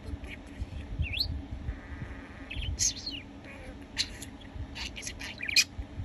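Pet budgerigar singing its warble: a string of short, high chirps and squeaks, with a quick rising whistle about a second in.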